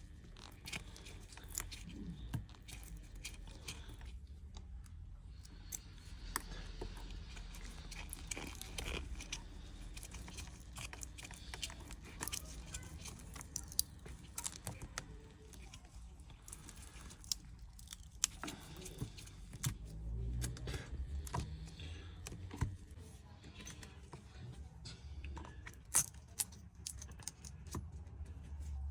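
Faint, scattered small clicks and taps of phone parts and small repair tools being handled, over a low hum.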